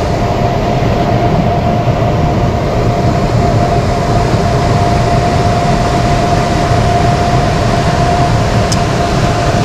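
HVAC equipment running steadily: a constant hum and low rumble with a steady whine over it.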